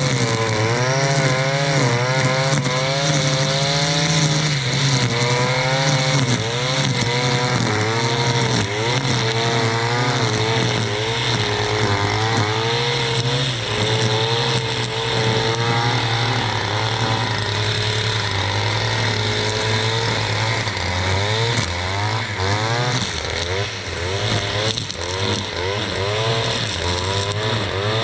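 Stihl FS 461 C-EM brushcutter's 4-MIX engine running at working speed, its pitch wavering up and down as the cutting head bites into vegetation.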